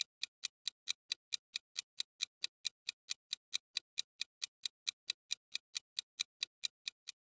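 Clock-tick countdown sound effect of a quiz timer: short, even ticks at about four to five a second, stopping just before the end.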